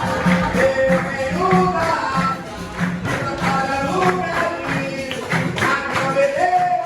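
Capoeira roda music: berimbaus and hand percussion keeping a steady beat, with a voice singing over them.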